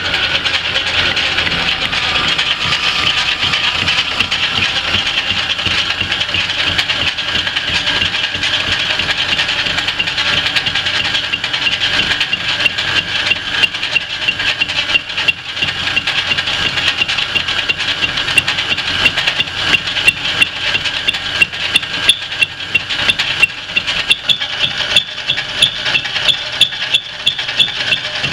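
Rockford lathe spinning a fly cutter through a steel face, with a steady high-pitched squeal over the machine's running. From about halfway through, the cutter strikes the work in regular sharp ticks. The owner takes the squeal for a sign that the fly cutter is dull and needed sharpening.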